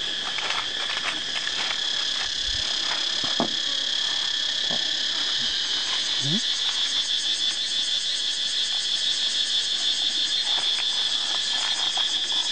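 Chorus of insects shrilling in the orchard trees: a steady high-pitched whine that takes on a fast, even pulsing about halfway through, with a few faint clicks and rustles.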